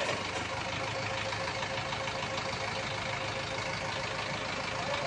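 Prime mover truck's diesel engine idling steadily.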